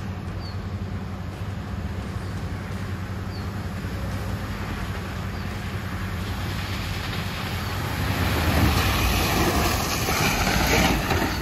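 Mahindra Thar SUV driving through a muddy, puddled track, its engine running steadily under the wash of tyres churning and splashing through mud and water. It grows louder as it approaches and is loudest near the end as it passes close by.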